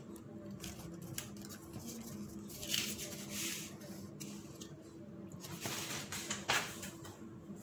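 Sheets of paper rustling and sliding as a written page is put aside for a blank one, in several short swishes, over a faint steady hum.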